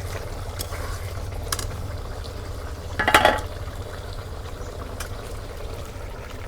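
Pot of browned chicken curry with water going in for the gravy, the liquid bubbling. A loud metal clank of a utensil against the pot comes about three seconds in, and a few lighter clicks fall around it.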